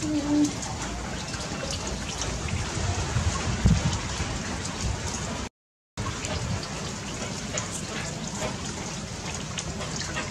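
A steady patter-like hiss with scattered small ticks throughout, and one low thump a little before the middle, cut off briefly once by an edit.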